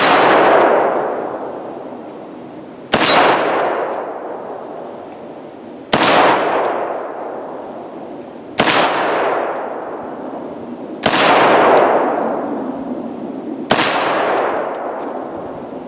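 Six single shots from a 7.62x39 AR-15 firing steel-case Tula ammunition, slow fire, two to three seconds apart. Each shot is followed by a long ringing tail that dies away over about two seconds.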